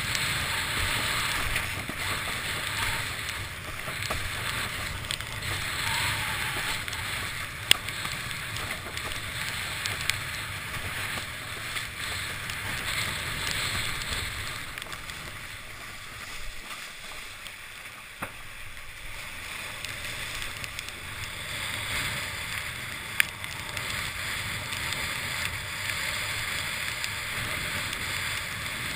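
Water rushing and hissing past a windsurf board as it sails over choppy water, with wind buffeting the boom-mounted camera. It eases for a few seconds past the middle, and a few sharp knocks stand out, about three in all.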